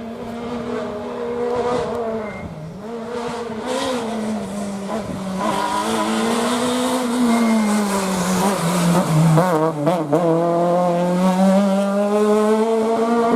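Rally car engine running at high revs through a stage, with short dips in pitch. It drops and stutters about nine seconds in, then pulls back up with a steadily rising pitch as the car comes closer.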